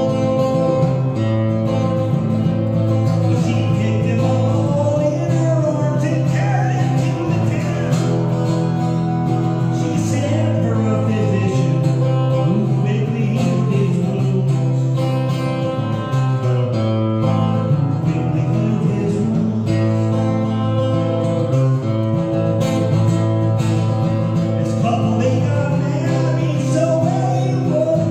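A man singing while strumming an acoustic guitar: a solo folk song played continuously.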